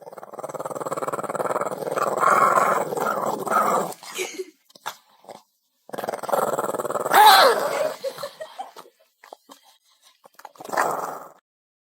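Dog growling in rough stretches: a long one, a second one about six seconds in with a brief higher cry in it, and a short one near the end.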